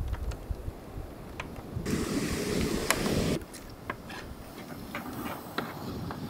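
Wind buffeting the microphone outdoors, a steady low rumble with scattered light clicks. About two seconds in, a rush of hiss swells for about a second and a half, then cuts off.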